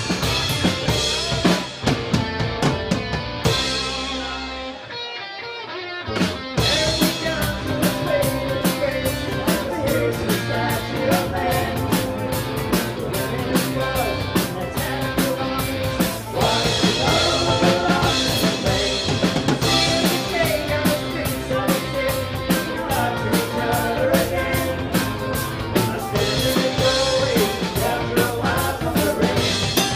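Folk-rock band playing live: drum kit, bass guitar, electric and acoustic guitars and mandolin. A few seconds in the drums and low end drop out briefly, and the full band comes back in about six seconds in.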